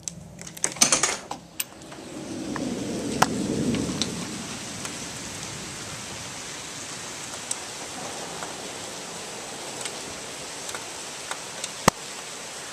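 Steady hiss of heavy rain in a night thunderstorm, with a low rumble of thunder swelling and fading about two to four seconds in. Clicks and a rustle of handling come in the first second and a half, and a sharp click comes near the end.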